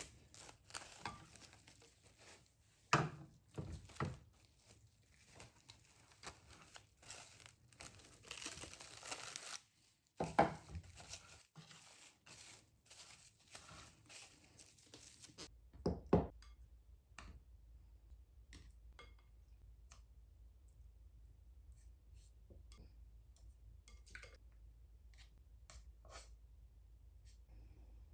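Plastic cling film being pulled off the roll, torn and crinkled as it is stretched over a glass bowl, with a few knocks, for about the first fifteen seconds. Then a thump, followed by a low steady hum and faint light clicks of a spatula moving scallops about in a nonstick frying pan.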